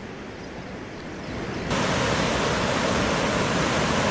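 Floodwater rushing through open sluice gates: a steady rush of churning water that turns suddenly louder about a second and a half in. It is flood discharge from a lake filled to capacity by heavy rain.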